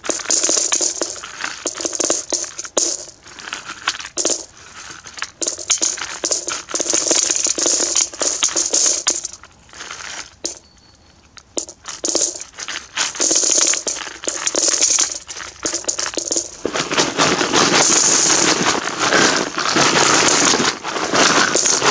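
Russian coins poured from a plastic jug into a galvanized metal bucket already part-full of coins, clattering and jingling in uneven runs. There is a short lull about halfway through, then a heavier, unbroken pour near the end.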